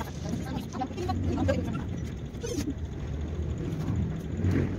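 Steady low rumble with light clicks and rustles of handling as line is wound onto a spinning reel; near the end the camera is picked up and moved, adding handling bumps.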